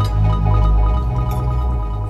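Electronic background music with a strong bass line and steady held notes.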